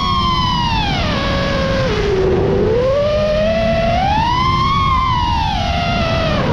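Mini FPV quadcopter motors whining, the pitch falling, then rising and falling again as the throttle changes, over a steady low rumble.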